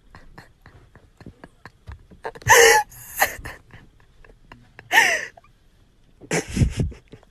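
A person's gasping, wheezy laughter, in three loud breathy bursts, over faint scattered ticks.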